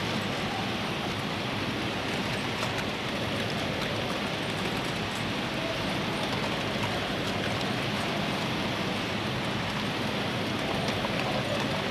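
Silk-reeling machines running in a mill: a steady, even mechanical din with faint scattered ticks.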